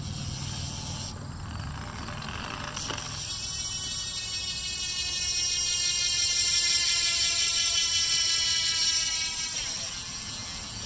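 BMX rear hub freewheeling as the wheel is spun, its pawls clicking in a fast, even ratchet that gradually slows as the wheel winds down.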